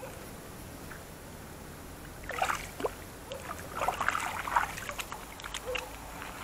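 Shallow water splashing and sloshing as a carp is released by hand and swims off, in two short bursts of splashes about two and a half and four seconds in, with a few smaller splashes after.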